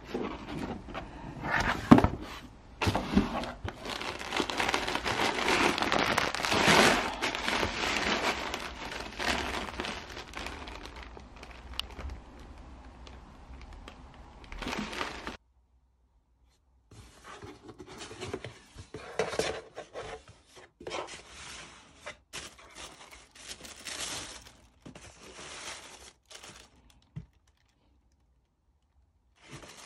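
Parcel packaging being torn open and handled: paper and plastic wrapping crinkling and tearing. After a short break about halfway, tissue paper rustles more quietly around a pair of sneakers in their box.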